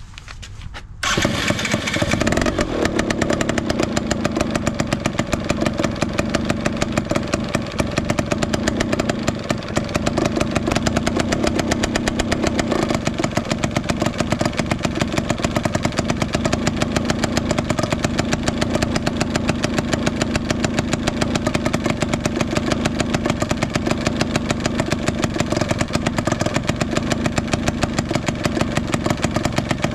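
Yamaha BW'S 100 scooter's two-stroke single-cylinder engine, coming in suddenly about a second in and then running steadily at idle with a rapid, even beat.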